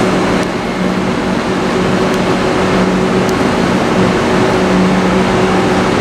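Steady hum of a Gautrain electric train standing at an underground platform, its equipment and air conditioning running as a constant drone with a low tone. A couple of faint clicks come through about two and three seconds in.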